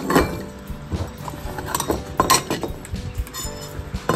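Cats eating from metal food bowls: irregular clinks and taps of the bowls, over background music.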